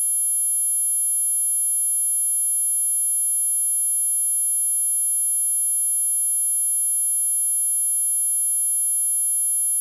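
A continuous, very high-pitched electronic tone of the 'mosquito' kind, held at one pitch without a break, with fainter steady lower tones beneath it.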